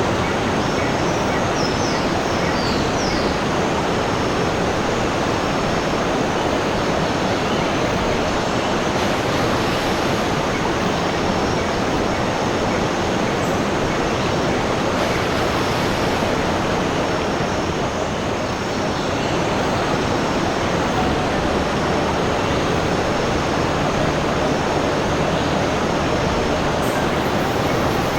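Steady, unbroken rush of running water, with a few faint high chirps about two to three seconds in.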